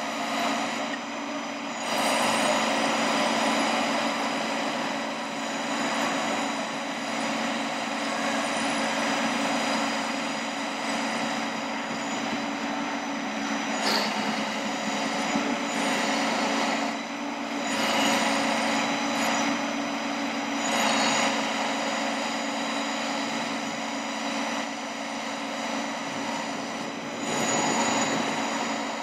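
Ford F-550 bucket truck running with its PTO engaged, driving the hydraulic pump as the aerial boom lifts the bucket. It makes a steady hum with thin high whining tones over it, swelling louder and easing off several times.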